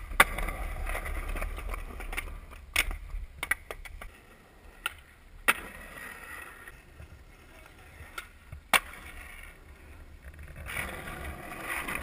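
Skateboard wheels rolling over concrete and asphalt, broken by about half a dozen sharp clacks of the board popping off and landing on the pavement.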